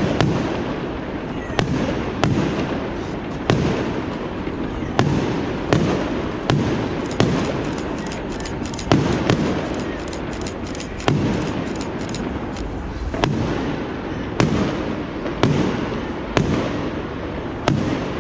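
Fireworks display: aerial shells going off with sharp bangs about once a second, with a run of rapid crackling around the middle, over the steady murmur of a large crowd.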